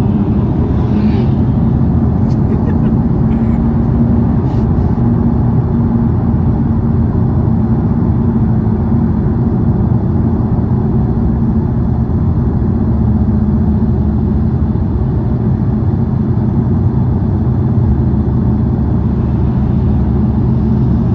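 Car driving at a steady speed: an even engine drone with tyre and road noise, holding at one pitch without revving.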